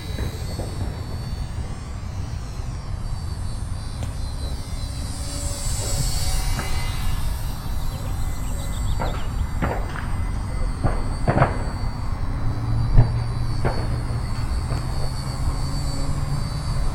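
Flyzone Ultra Micro SE5a RC plane's tiny electric motor and propeller buzzing with a thin high whine in flight. The whine swells and shifts in pitch around six seconds in as the plane passes. A few faint clicks come later.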